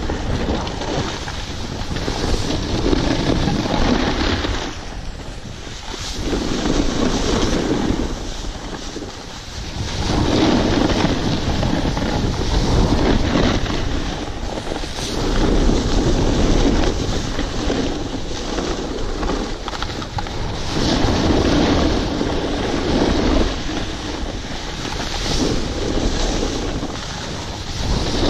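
Wind rushing over an action camera's microphone on a fast descent of a ski slope, with the scrape of edges on packed snow swelling and fading every few seconds as the rider turns.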